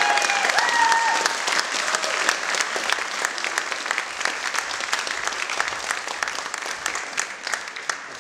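Audience applauding at the end of a performance, with a few voices calling out over the clapping in the first second or so; the applause slowly thins and fades.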